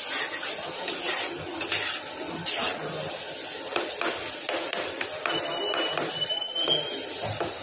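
Steel spoon stirring and scraping a thick fish masala in a frying pan, giving irregular clinks and knocks of metal on the pan.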